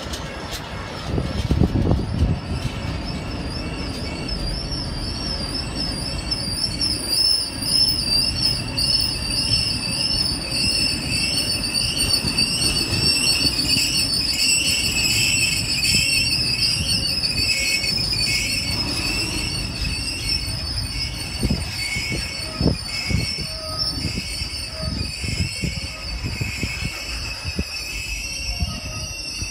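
A train moving past with a wavering, high-pitched squeal from its wheels over a low rumble, joined by a run of sharp knocks in the second half.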